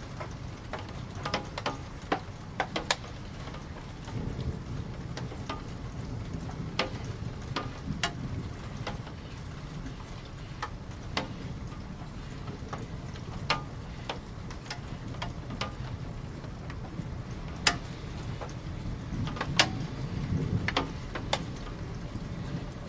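Rain: scattered drops tapping on a hard surface as irregular sharp ticks, a few louder than the rest, over a low steady rumble.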